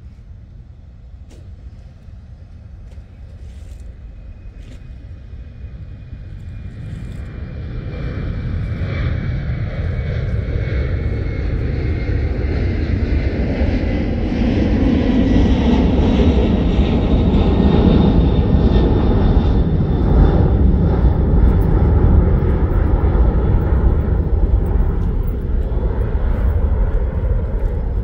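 Airplane flying low overhead: a rumble that builds over about fifteen seconds, then stays loud, with a faint whine falling slowly in pitch.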